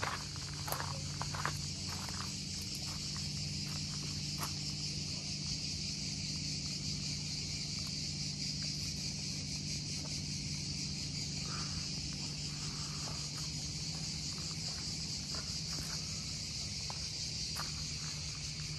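A steady, high-pitched chorus of summer insects chirring in garden vegetation, with a low steady hum beneath it. A few light footsteps tap in the first seconds.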